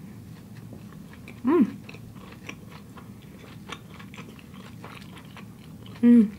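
Close-up chewing of a natto sushi roll: soft, wet mouth clicks throughout. Two short hummed "mm" sounds of enjoyment, one about a second and a half in and one near the end.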